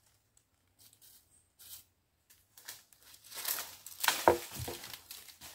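Leaves and branches rustling as a long pole is pushed and jabbed up into the leafy branches of a sour orange tree, in scattered short rustles that grow louder and denser about three to five seconds in.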